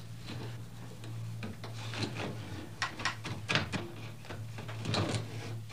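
Irregular wooden knocks and clacks from a hand loom as a weaver works the weft, over a steady low hum.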